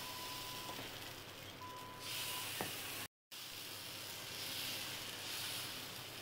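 Dosa batter sizzling on a hot tawa as it is spread into a round with a spoon; the sizzle grows stronger about two seconds in and cuts out for a moment just after three seconds.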